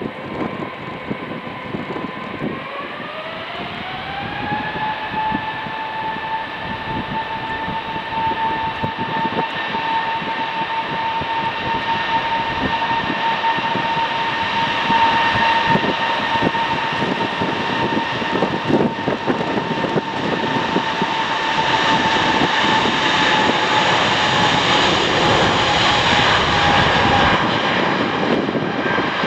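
Airbus A380's four turbofan engines spooling up: a whine rises in pitch a few seconds in, then holds steady over a growing rushing roar, consistent with engines run up to take-off power.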